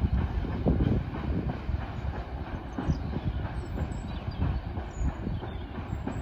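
Freight train of car-carrier wagons rolling past, a steady low rumble broken by irregular knocks of wheels over the rail joints.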